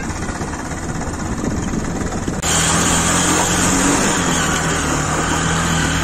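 Motorcycle engine running as the bike is ridden along a road, with wind noise on the microphone. About two and a half seconds in the sound shifts abruptly to a steadier engine hum with more hiss.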